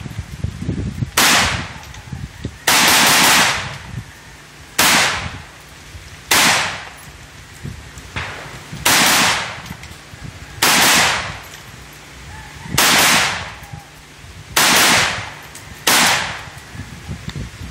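Rifle gunfire at close range: about nine loud shots or short rapid-fire strings, spaced roughly two seconds apart, several of them lasting about a second.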